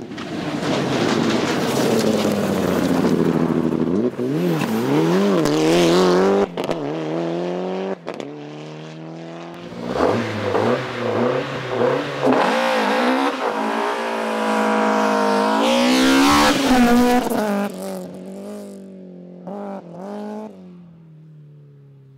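Rally car engine at full throttle on a stage: the pitch first falls as the car slows, then climbs again and again through quick gear changes. It is loudest a couple of seconds before it fades off near the end.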